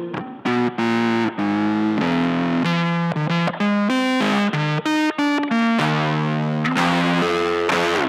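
Electric guitar played through a floor of effects pedals: an improvised lead line of held notes, phrase after phrase, with a few very short breaks.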